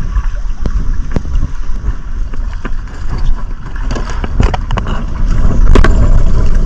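Steady low rumble of wind buffeting the microphone, with scattered clicks and knocks from handling a spinning rod and reel.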